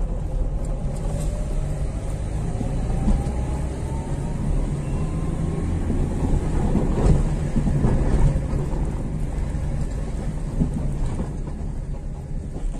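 Engine and road noise inside a moving vehicle's cab, a steady low rumble. An engine whine rises in pitch over the first few seconds as the vehicle accelerates, and the road noise gets rougher a little past the middle.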